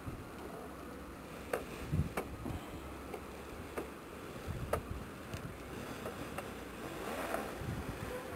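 Low outdoor background rumble with several scattered light clicks, growing a little louder near the end.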